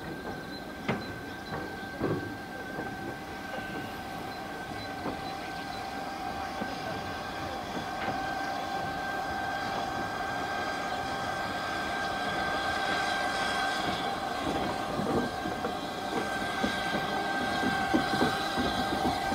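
LSWR S15 4-6-0 steam locomotive No. 506 and its tender coasting slowly into a station, growing louder as it approaches, with clanks and knocks from wheels and rail joints over a steady high-pitched squeal. A hiss of steam builds in the second half.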